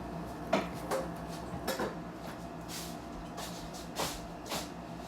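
A few light clicks and taps with brief rustles, from handling food and dishes while eating hard-boiled eggs, over a steady low hum.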